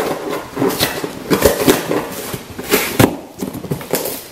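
Cardboard shipping box being torn open by hand: a run of irregular ripping and crackling as the flaps are pulled apart.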